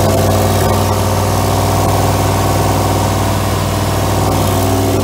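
1963 Oldsmobile Jetfire's 215 cubic-inch aluminium V8 running steadily at a constant speed during its camshaft break-in run.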